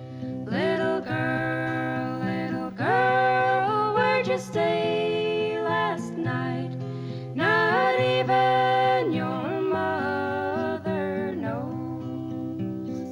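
Background music: acoustic guitar chords under a melody that slides between notes in slow phrases, in a country-folk style.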